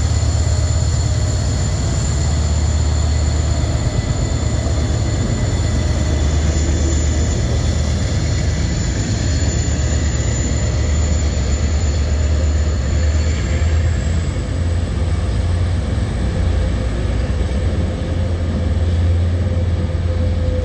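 Irish Rail 071 class diesel-electric locomotive's two-stroke EMD V12 engine working under power as it hauls a dead locomotive and empty flat wagons away, a deep steady rumble with a high steady whine over it. Toward the end the empty flat wagons roll past on the rails.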